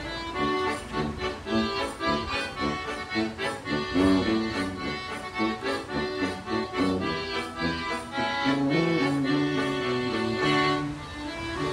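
Accordion, tuba and banjo trio playing an instrumental German oompah tune, the accordion carrying the melody over a steady beat.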